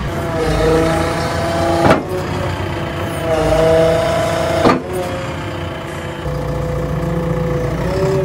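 JCB 3DX Plus backhoe loader's diesel engine running just after starting, its pitch rising and falling twice as it is revved lightly. Two sharp clicks come about two seconds and nearly five seconds in.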